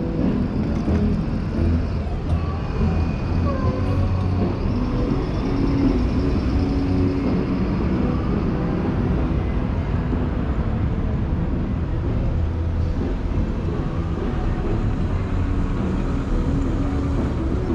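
Street traffic: car and bus engines running and moving past at low speed, a steady rumble.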